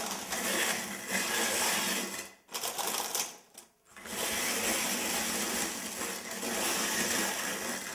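Hand-cranked rotary drum grater grinding amaretti biscuits into crumbs: a continuous grainy rasping that breaks off twice briefly, about two and a half seconds in and again a little later, then runs on until it stops near the end.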